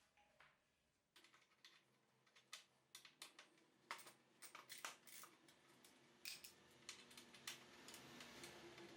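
Faint, irregular light clicks and taps of small metal parts and hand tools being handled, growing busier after a few seconds, over a low steady hum that starts about a second in.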